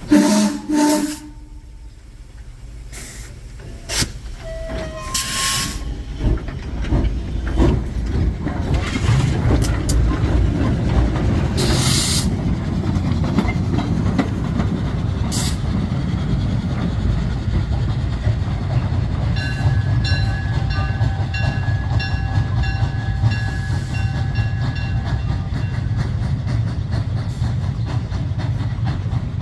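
A narrow-gauge train running, with a steady low rumble that builds from about eight seconds in. A few short hissing noises come early on, and faint high steady tones run for several seconds past the middle.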